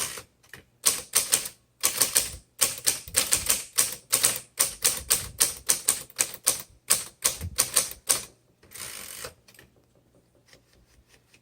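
1954 Smith Corona Skyriter manual travel typewriter being typed on: quick runs of sharp key strikes, several a second, followed about nine seconds in by one longer, softer sound.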